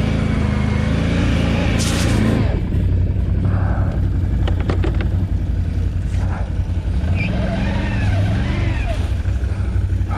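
ATV engine running steadily while the quad sinks into soft, boggy ground, with a few sharp clicks about halfway through.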